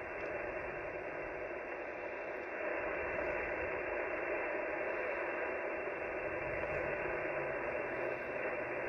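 Steady static hiss from an HF ham transceiver's speaker as the receiver is tuned across the 80-meter band, cut off above the range of a voice. It grows a little louder about two and a half seconds in. No station comes through, the sign of a quiet band.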